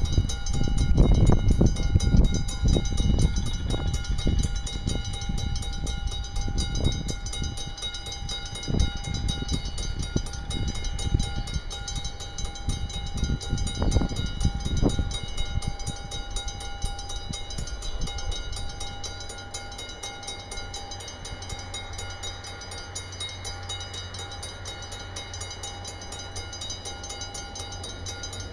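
Gusty low rumbling of wind buffeting the microphone, loudest in the first half, then a low steady hum from the approaching DB Class 6400 diesel-electric locomotive, which comes in about two-thirds of the way through.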